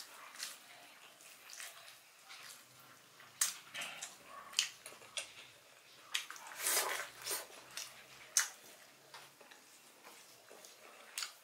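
Close-up eating sounds of a man chewing and lip-smacking on grilled meat and rice eaten by hand, in short irregular bursts.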